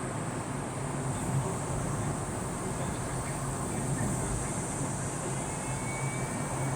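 Steady running noise of a moving vehicle: a low, even hum under a constant hiss, with no distinct events.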